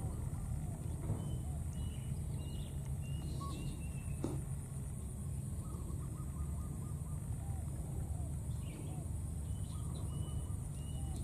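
Faint animal calls over a steady low outdoor rumble: two runs of short, high, evenly pitched chirps, one a couple of seconds in and one near the end, with soft rising-and-falling calls in between.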